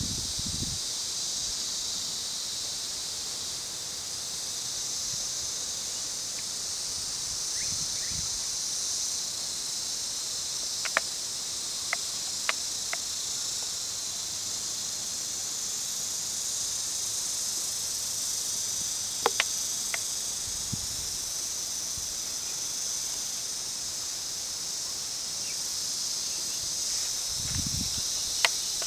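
A steady, high-pitched insect chorus, wavering slightly in strength, with a few brief faint clicks.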